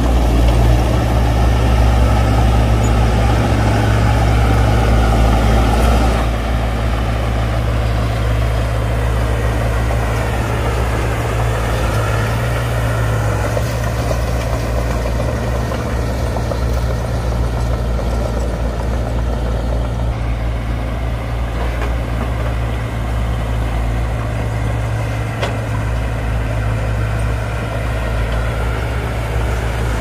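Heavy diesel engine of a Shantui crawler bulldozer running steadily as it pushes dirt and stone, a loud low hum. The sound drops slightly in level about six seconds in.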